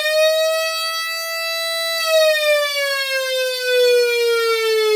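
Built-in siren of a PA 4000 public address amplifier, sounding through its loudspeaker as one buzzy wail. The pitch holds steady, then from about two seconds in slowly slides down.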